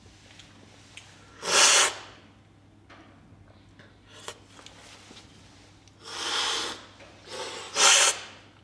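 Coffee being slurped hard off cupping spoons, the forceful cupping slurp that sprays the coffee over the palate for tasting. One loud slurp comes about a second and a half in, then more in quick succession near the end.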